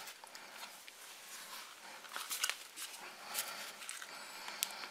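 Faint handling noise from a plastic cordless drill and its tape-wrapped battery pack being turned over in the hands: light rustling and scraping with a few soft clicks.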